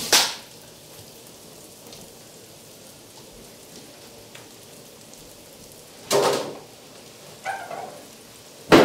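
Kitchen handling noises from a baking tray of root vegetables: a brief knock at the start, a scraping rustle about six seconds in, and a sharp clack near the end, over quiet room tone.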